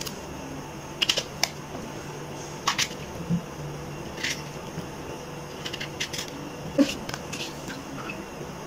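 Kitchen knife cutting small eggplants held in the hand: short, sharp clicks at irregular intervals as the blade cuts through them, a few close together around the first second and again past the middle.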